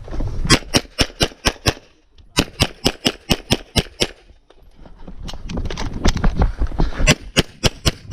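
CZ SP-01 pistol fired rapidly in a USPSA stage run: three quick strings of shots, about half a dozen, then about eight, then a dozen more, with short gaps between them as the shooter moves to new positions.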